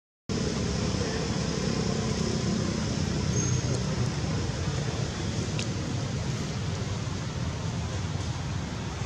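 Steady low rumble of distant road traffic under the outdoor background noise, with a faint short high tone about three and a half seconds in and a light tick a couple of seconds later.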